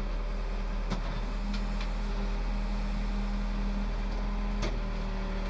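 Case 580L backhoe's turbocharged diesel engine running steadily, with a couple of faint clicks about a second in and near the end.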